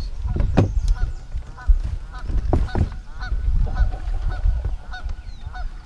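Geese honking, short calls repeating about two or three times a second from about a second in, over a steady low rumble.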